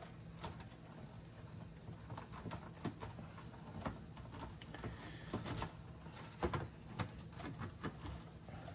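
Faint clicks and knocks of hands working the plastic power-supply connectors on a 286 PC motherboard, the loudest a couple of knocks a little past halfway, over a low steady hum.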